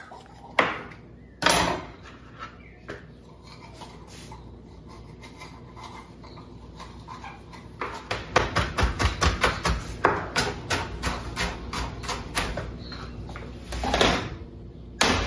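Chef's knife chopping bell peppers on a plastic cutting board: after a couple of knocks, a quick run of sharp taps, several a second, starts about halfway through.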